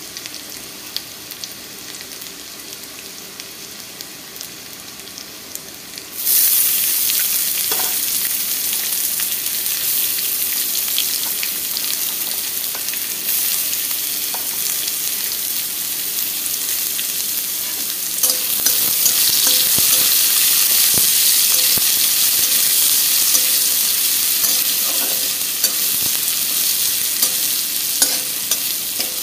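Chilli and ginger frying quietly in oil in a kadai; about six seconds in, chopped onion goes into the hot oil and the sizzle turns suddenly loud. It then keeps sizzling while a flat metal spatula stirs and scrapes, with scattered clicks against the pan.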